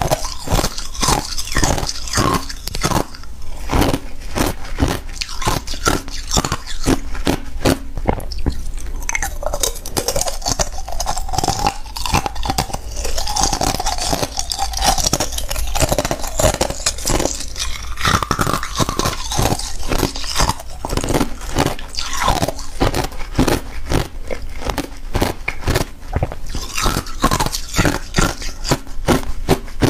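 Thin clear ice being bitten and chewed close to a clip-on microphone: a dense, continuous run of sharp crunches, several a second.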